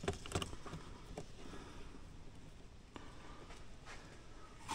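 Light clicks and taps of small plastic and metal parts being handled and fitted at an RC crawler's transfer case and drive shaft: a few in the first second or so, one about three seconds in and another near the end.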